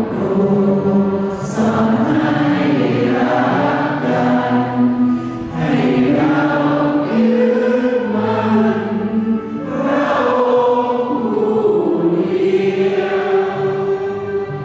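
Choir singing a slow hymn in long, held phrases.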